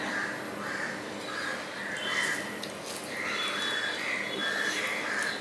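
Crows cawing over and over, harsh calls about two a second, with a few brief higher chirps among them.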